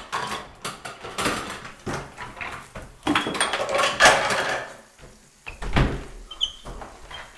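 A rapid, irregular series of knocks, bangs and rustling noises, loudest about three to four seconds in.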